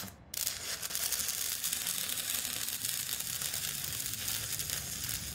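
Arc-welding sound effect: a short burst, then a steady crackling sizzle of sparks, mostly high-pitched.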